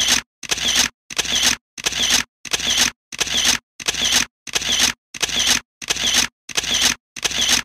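Camera shutter sound effect repeating in a steady rhythm, about three shots every two seconds, each a short burst that cuts off cleanly.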